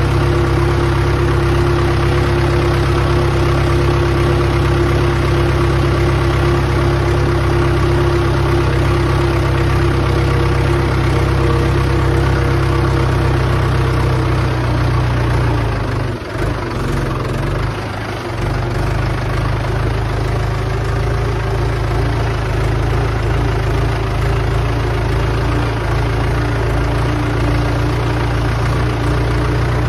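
Mahindra 415 DI XP Plus tractor's four-cylinder diesel engine running steadily under way, heard from the driver's seat, with two brief dips in level about halfway through.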